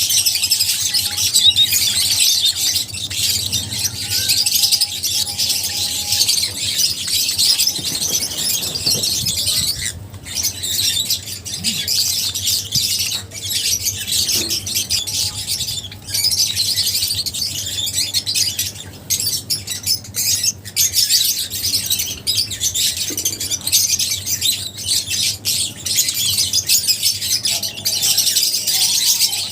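A flock of lovebirds chattering: many high, rapid chirps and shrill squawks overlapping without a break, with brief lulls about a third and halfway through.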